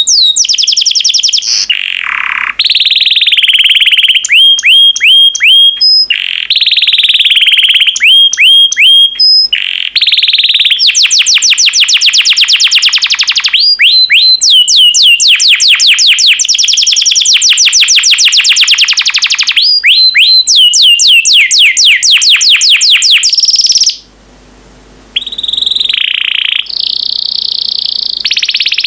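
Yellow canary singing loudly: fast rolling trills and rows of quickly repeated sweeping notes, broken by a pause of about a second near the end.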